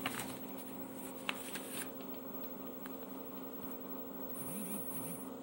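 Quiet room tone: a faint steady hum with a few small clicks.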